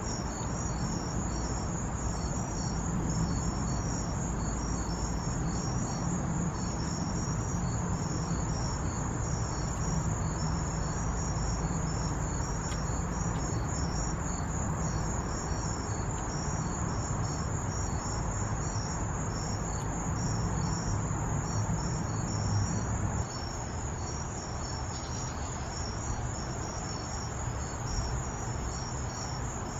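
Insects chirping steadily in evenly repeated high pulses, over a low background rumble that drops off about three-quarters of the way through.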